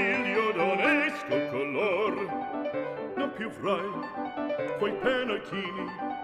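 Background music: an operatic voice singing with vibrato over instrumental accompaniment.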